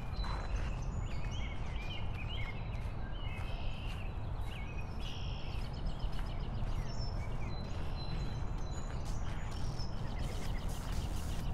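Outdoor ambience: several birds chirping and singing over a steady low rumble, with scattered light clicks.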